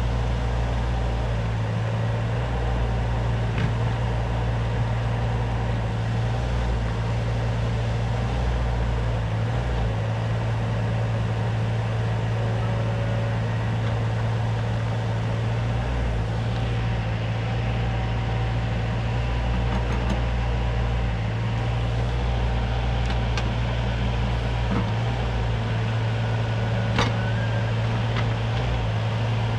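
CAT 302.7D mini excavator's diesel engine running steadily, with a few sharp knocks from the machine working, the clearest near the end.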